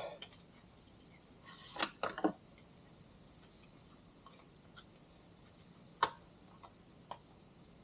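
Quiet handling of a small cardboard accessory box and its contents: a short rustle about two seconds in, then a few light clicks and taps, the sharpest about six seconds in.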